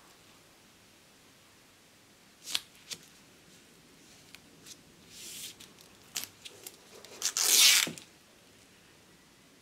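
Masking tape being handled and laid down by hand: a few short rustles and ticks, then a louder rip of tape lasting about half a second near the end.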